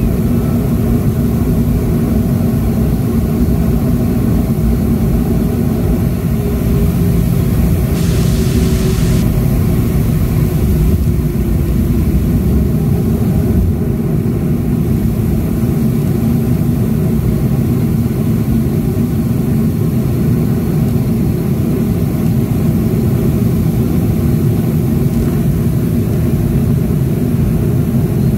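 Cabin noise of a Boeing 737-500 taxiing, heard from a window seat over the wing: its CFM56-3 turbofans at low taxi thrust make a steady low rumble with a humming tone. A brief hiss about eight seconds in.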